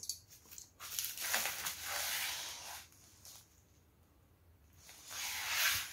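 Bubble wrap and plastic packaging crinkling as a wrapped parcel is handled: a stretch of about two seconds starting about a second in, then a shorter rustle near the end.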